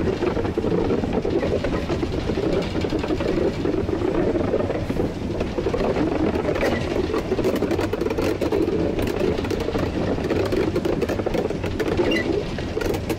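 1943 Davenport-built steam locomotive heard from its cab while under way: a steady rumble with rattling, and a few light clicks near the end.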